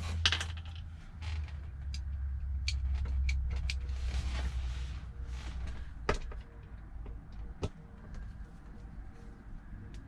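Creaks and handling noise from the shifter boot and its trim being worked loose, over a low rumble for the first six seconds. There are sharp clicks about six seconds in and again a second and a half later.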